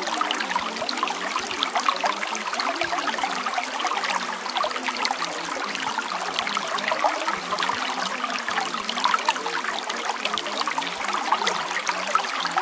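Water trickling and babbling steadily, like a small stream, as a continuous bed of sound.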